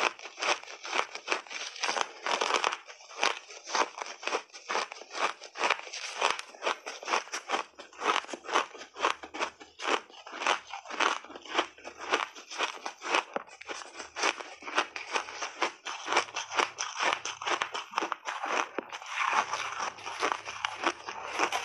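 Refrozen shaved ice with frozen berries crunching and crackling as gloved fingers crush and rake it in a tray and pieces are chewed, a close, rapid run of crunches, about four a second.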